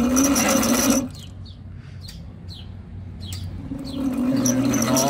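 The semaphore dwarf signal's 110-volt DC motor drives its pinion and large gear with a steady whining hum. It stops about a second in and starts running again near the end. Short falling bird chirps repeat in between.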